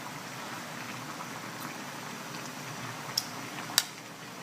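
Pork menudo stew simmering in a wok, a steady bubbling hiss. Two sharp clicks come near the end, the second louder.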